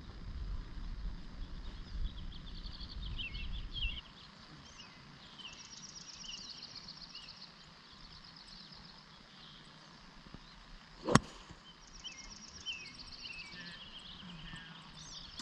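One sharp crack of a golf club striking the ball off the tee, about eleven seconds in, the loudest sound here. Birds chirp and trill throughout, and a low rumble fills the first four seconds, then drops away.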